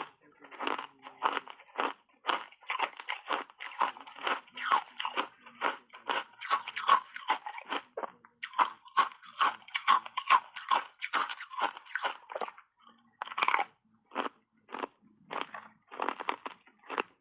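Hard ice chips coated in matcha powder being bitten and chewed: a dense run of sharp crunches, about two to three a second, with brief pauses about eight and fourteen seconds in.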